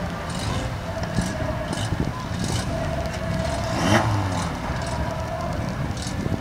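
Engines of several banger racing cars running together on the grid, a steady low rumble with a brief rise and fall in pitch about four seconds in.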